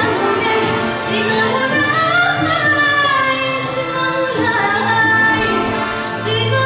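A female soloist singing an Algerian song with a full symphony orchestra. Her voice winds up and down over sustained strings and orchestral accompaniment.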